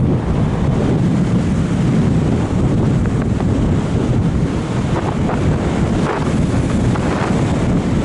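Airflow buffeting the microphone of a Sony HDR-AS15 action camera riding on a Bird of Time RC sailplane in gliding flight: a steady, low rush of wind noise with no motor.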